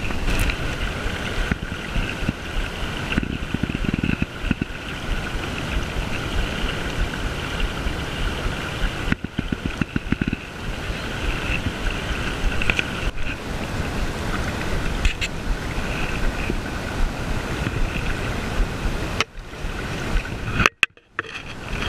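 Steady rush of a shallow river flowing over gravel, with some wind on the microphone; the sound breaks off briefly at a few edits, most sharply near the end.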